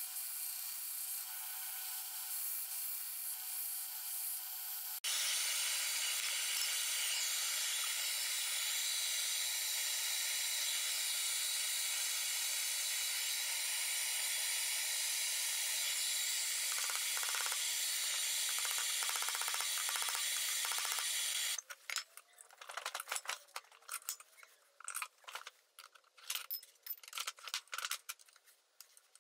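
Belt grinder running steadily as a metal knife guard is ground against the belt, getting louder after a cut about five seconds in. About two-thirds of the way through the grinding stops and gives way to irregular light metal taps and clicks as the guard is worked in a bench vise.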